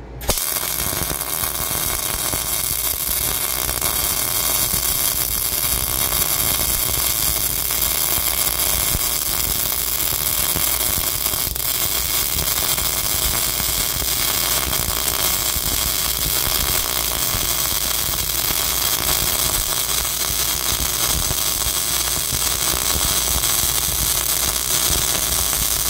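MIG welding arc from a Lincoln Power MIG 215 running 0.035-inch ER70S-6 steel wire under CO2 shielding gas, laying a bead on quarter-inch steel plate. It is a continuous dense crackle that strikes up right at the start and runs on steadily.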